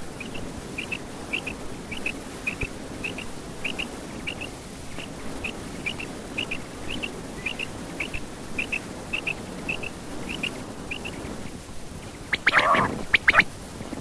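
Quail calling: short high chirps, often in pairs, repeated about twice a second, stopping shortly before the end. Near the end comes a brief, louder, rougher burst of a few calls.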